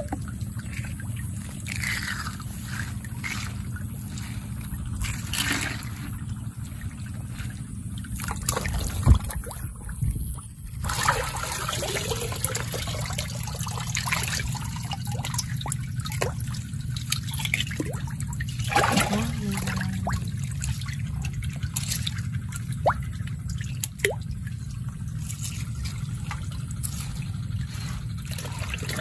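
Shallow water dripping, trickling and splashing as hands feel through it for freshwater clams, with many small splashes and a steady low rumble underneath. One louder thump about nine seconds in.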